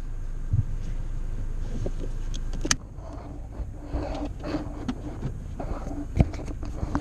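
Clicks, knocks and rustles from a handheld camera being moved around inside a car, over a steady low hum; a sharp click comes a little under three seconds in, after which the hum is quieter, and another sharp knock comes near the end.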